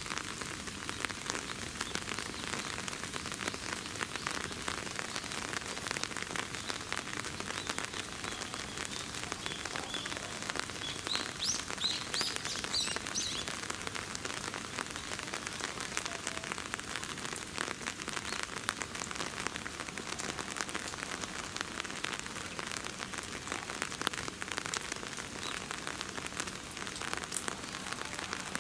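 Steady rain falling, with many individual drops ticking close by. Around the middle, a bird gives a few short, high chirps.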